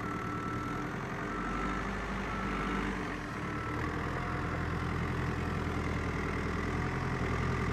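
Caterpillar 428D backhoe loader's diesel engine running as the machine drives and turns, a little louder after about four seconds. A short high tone repeats about once a second in the first four seconds.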